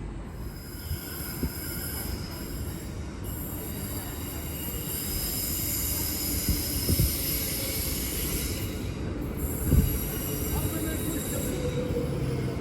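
Suburban train running on the rails with its wheels squealing: several high-pitched tones held over a low rumble, with a few sharp knocks partway through and near the end.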